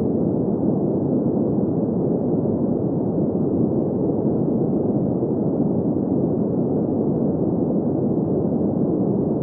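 Green noise: a steady, even rush of noise centred in the low middle range, with nothing above about 2 kHz and no change in level.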